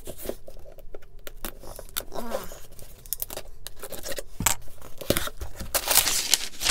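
Packing tape ripped off a cardboard shipping box and the flaps pulled open: a run of short tearing and scraping sounds with crinkling, the loudest rips in the second half.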